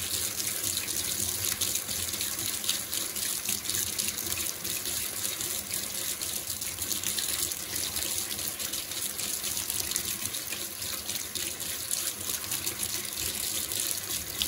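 Thin stream of tap water running steadily into a small plastic strainer held over a sink, splashing over tomato seeds being rinsed.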